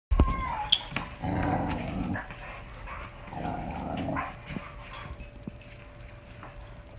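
Boxer dog growling, two growls of about a second each during a standoff with a cat, after a short falling whine-like call at the start.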